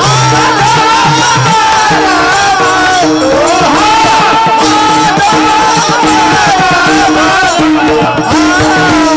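Devotional kirtan music: a wordless melody bends and glides over a steady held drone, with jingling hand percussion keeping the beat.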